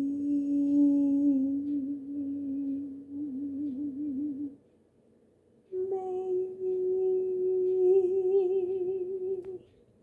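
A person humming two long held notes, the second a little higher. Each wavers into vibrato near its end, with about a second's pause between them.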